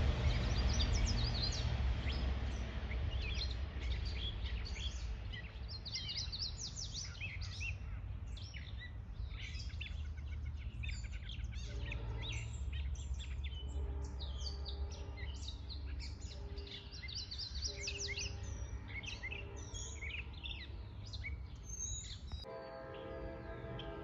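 Rumble of a Long Island Rail Road train fading away over the first few seconds after it passes, then songbirds chirping over a low steady rumble.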